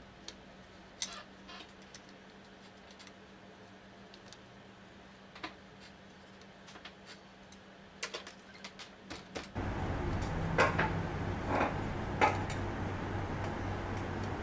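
Small metallic clicks and taps from a road bike's crankset and chainrings being handled and fitted. About nine and a half seconds in, a steady hum and hiss comes up suddenly, with a few sharper clicks over it.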